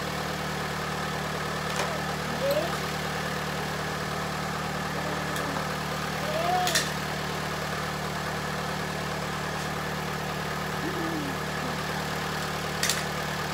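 Car engine idling steadily after a jump-start from a dead battery, with a few sharp clicks from the booster cable clamps being handled.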